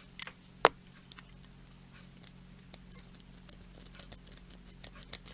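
Irregular light clicks and taps of small tools and parts being handled on a soldering workbench, with a faint steady electrical hum beneath.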